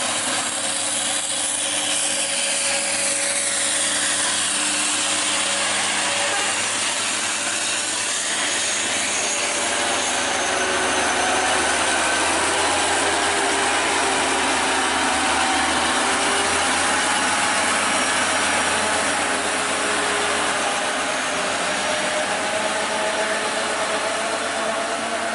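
Heavy diesel trucks passing at close range, chiefly a loaded Mitsubishi cargo truck's engine running under load over steady road and tyre noise. The engine note falls in pitch over the first several seconds, then holds and slowly rises near the end.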